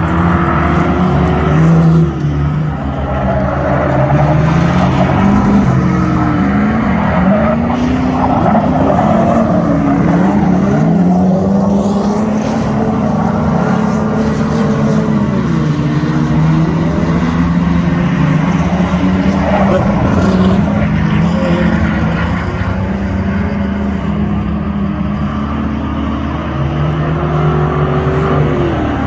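Speedway sedan race car engines running hard on a dirt track. Several engines overlap, their pitch rising and falling every few seconds as the cars accelerate and back off.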